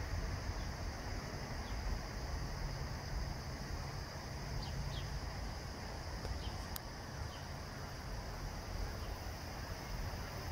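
Steady outdoor insect drone at a high pitch, with a few faint short chirps and a low rumble underneath; a single sharp click about seven seconds in.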